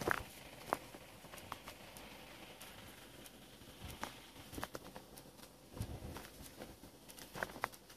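A few faint, irregular footsteps crunching on gravel, spread out with pauses, a little louder near the start and again near the end.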